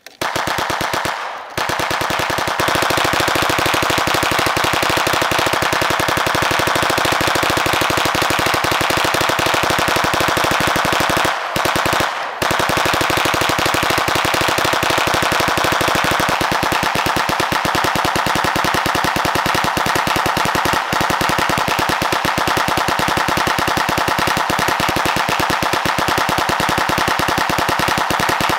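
Tippmann Ordnance hand-cranked, belt-fed .22 LR Gatling gun firing a long, unbroken string of rapid shots, with brief breaks about a second in and twice around twelve seconds in.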